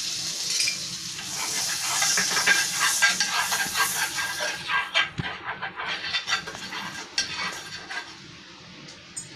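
Butter and oil sizzling in a hot nonstick pan while a metal spoon scrapes and taps across it, spreading the fat. The sizzle is strongest in the first few seconds and fades toward the end.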